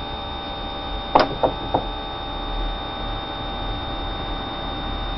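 Electric fuel pump of a Renault 5 GT Turbo running steadily with the engine off, a constant hum. Three quick ticks come about a second in.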